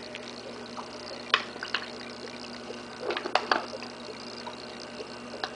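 Aquarium fish smacking their lips at the water surface as they feed, making sharp wet pops: two about a second in, a quick cluster a little past the middle, and one more near the end.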